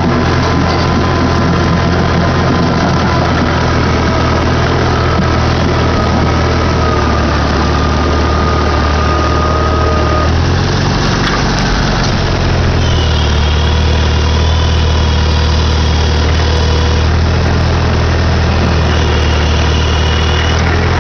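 Farmall Super A tractor's four-cylinder gasoline engine running steadily, its note shifting briefly about halfway through before settling back. A thin high whine comes and goes over the second half.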